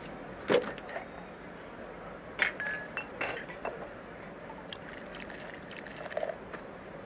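Water poured from a plastic bottle into glass bottles hanging on strings, with several sharp clinks of glass and one brief clear ring.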